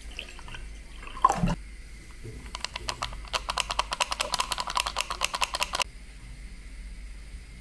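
Water poured from a plastic bottle into a ceramic mug, glugging in quick regular pulses for about three seconds, after a short knock a little over a second in.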